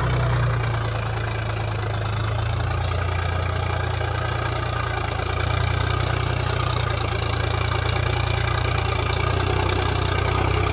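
Swaraj 735 FE tractor's three-cylinder diesel engine running steadily under load as it pulls a cultivator through wet soil, getting a little louder about halfway through.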